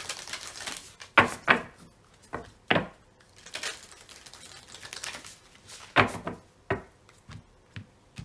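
Moonology Oracle card deck being hand-shuffled: cards sliding and rustling, with sharp slaps and taps as they drop onto the stack, loudest at about a second in and again about six seconds in.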